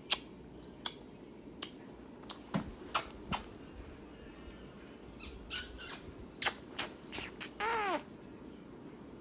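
Kitten scratching in cat litter, a run of irregular scrapes and clicks, then one short meow near the end that rises and falls in pitch.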